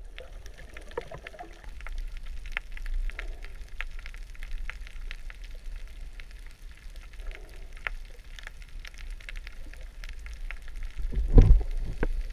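Underwater ambience picked up by a submerged camera: scattered crackling and clicking over a steady deep rumble, with a louder whoosh of water near the end.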